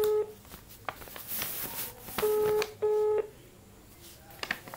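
Telephone ringback tone of an outgoing call that has not yet been answered, heard over the phone line: a steady low beep in double pulses, the end of one pair just at the start and a full pair about two seconds in.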